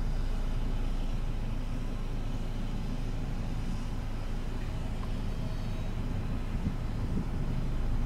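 Steady low rumble of an idling engine, even and unchanging throughout.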